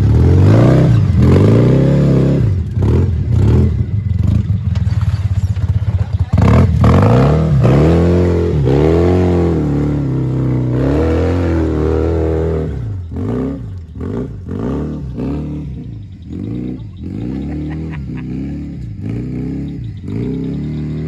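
Polaris Ranger RZR S side-by-side's engine revving up and down over and over as the machine crawls up a rough rocky slope. It is quieter and steadier in the last several seconds.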